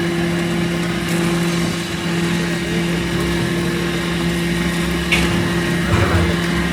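Limestone grinder machine running steadily: a loud, even mechanical drone with a constant hum, and a couple of short knocks about five and six seconds in.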